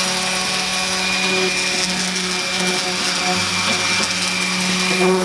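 Electric random orbital sander with a dust-collection hose attached, running steadily against cherry wood: a continuous motor hum with a thin high whistle.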